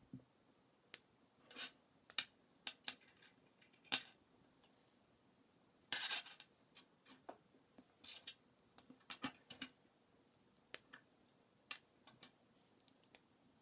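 K'NEX plastic rods and connectors clicking as they are handled and snapped together, a series of short, irregular clicks with a denser run about six seconds in and again around eight to ten seconds in.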